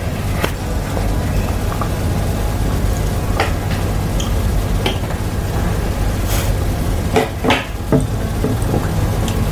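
Metal spoons clinking and scraping against a plastic high-chair tray and a plate, a handful of scattered clinks over a steady low background hum.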